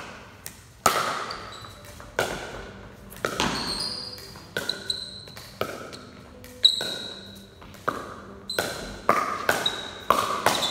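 Pickleball rally: sharp, echoing pops of paddles striking the hard plastic ball and the ball bouncing on the concrete floor, about one every second, quickening near the end. Brief high-pitched squeaks come between some of the hits.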